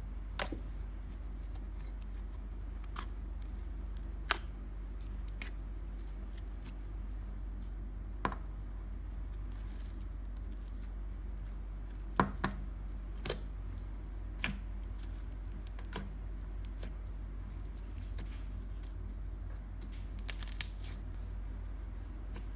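Clear slime being pressed, stretched and pushed into a jar by hand, giving scattered sticky clicks and pops a second or a few seconds apart, with the sharpest ones about halfway and near the end. A steady low hum lies underneath.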